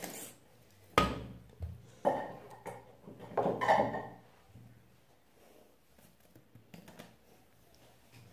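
Close handling noises: a sharp knock about a second in, then two short bursts of rustling or scraping, and a few light clicks later on.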